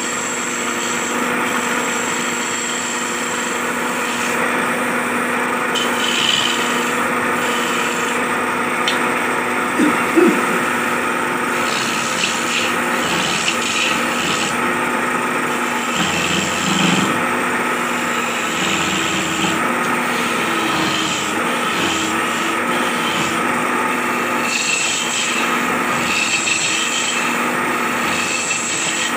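Belt-driven wood lathe running with a steady hum while a hand-held turning chisel scrapes and cuts the spinning wooden cot-leg blank, a continuous rasping of steel on wood. A short louder knock about ten seconds in.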